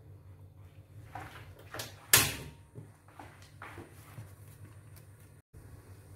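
A single sharp bang with a short ringing tail about two seconds in, among softer knocks and handling noises.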